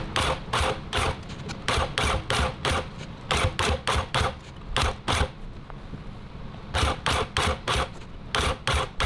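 Industrial sewing machine stitching binding tape onto a tufted rug's edge, run in short bursts about three a second, with a pause of over a second just past halfway.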